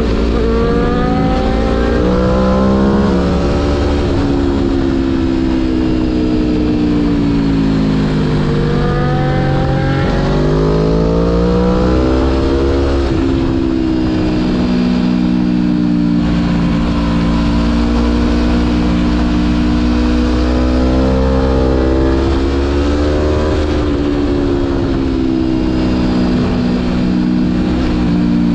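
Aprilia Tuono V4 1100 Factory's V4 engine heard from the rider's seat while riding, its pitch rising and falling as the rider accelerates, shifts and rolls off. About ten seconds in it drops low and then climbs sharply. It holds steadier through the middle before dipping again, with a steady low rumble underneath.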